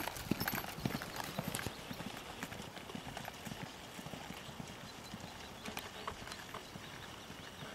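Hoofbeats of a ridden horse on grass, loud at first and growing fainter over the first couple of seconds as the horse moves away, then sparse and faint.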